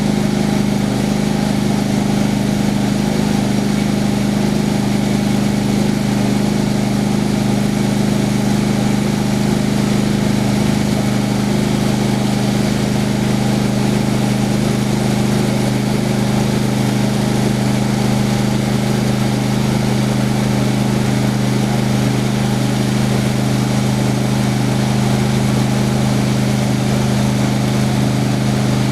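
Homemade sawmill's engine running at a steady speed, an even low hum with no change in pitch or level.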